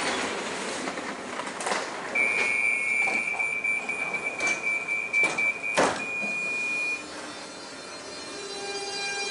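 Copenhagen S-train doors closing: one steady high warning tone lasting about five seconds, with a knock as the sliding doors shut near its end. Near the end the train's electric motors begin to whine as it starts to move.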